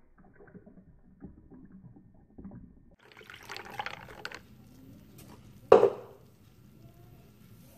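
Milk pouring into a tall glass of iced espresso: a faint low crackling splash at first, becoming louder and hissier about three seconds in as the stream thins. A single sharp knock, the loudest sound, comes near six seconds in as the pour ends.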